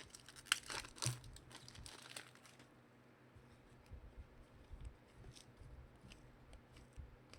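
Trading cards and their pack wrapper being handled: faint crinkling and soft scattered clicks, busiest in the first second or so.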